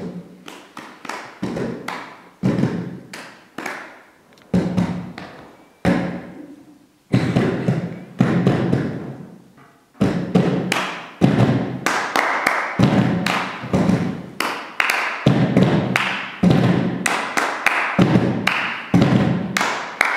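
Hands drumming on upturned plastic crates: a loose run of hollow thumps that turns denser and louder about halfway through.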